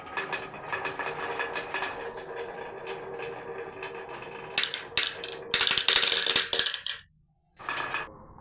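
Marbles rolling and clattering down a HABA marble run: rapid clicking and rattling throughout, growing into louder bursts of clatter about two-thirds of the way in. It breaks off briefly near the end and comes back once.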